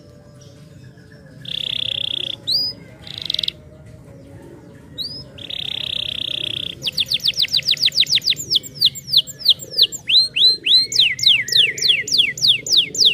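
Domestic canary singing: buzzy rolling trills and a few rising chirps at first, then, from about seven seconds in, a rapid run of falling whistled notes that carries on to the end.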